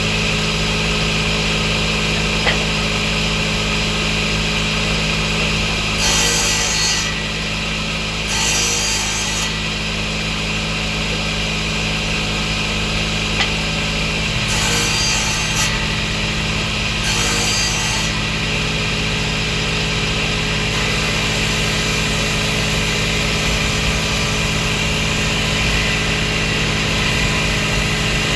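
Table saw running steadily, its blade cutting wood in four short passes of about a second each.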